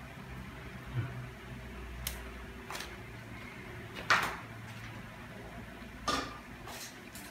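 Scattered sharp kitchen knocks and clicks, like utensils or cookware being handled and set down, about seven in all with the loudest about four seconds in, over a low steady hum.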